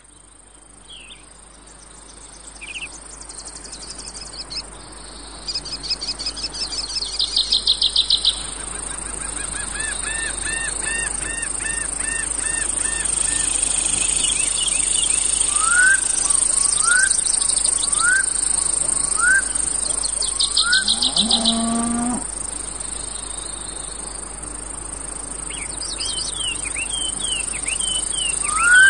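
Outdoor nature soundscape: several birds calling and trilling over a steady high insect drone, including a run of short rising calls about once a second and a short low call a little after 20 seconds in. It fades in from near silence at the start.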